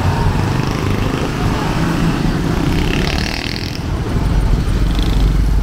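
Street traffic with vehicle engines running close by. An auto-rickshaw's small engine passes near about four seconds in, and the low engine rumble grows louder.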